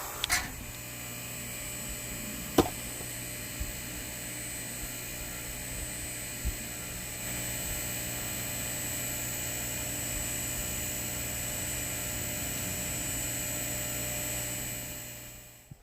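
Electric hydraulic log splitter (8-ton) running with a steady motor-and-pump hum, with a single sharp crack about two and a half seconds in. The hum grows slightly louder about seven seconds in and fades out near the end.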